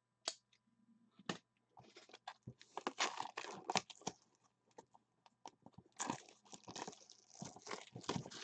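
Crinkling, crunching and tearing of plastic wrapping, with a few sharp clicks, as a sealed trading card box is handled and unwrapped. The sound comes in bursts that thicken about two seconds in.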